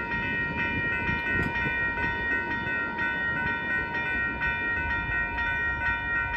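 Railroad grade-crossing bell ringing steadily in evenly repeated strikes while the crossing gates rise, the sign that the train has cleared. Under it is a low rumble from the departing freight train.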